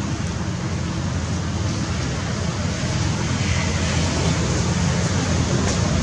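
Wind buffeting the camera microphone: a steady, rough rumble with a hiss over it that grows slightly louder toward the end.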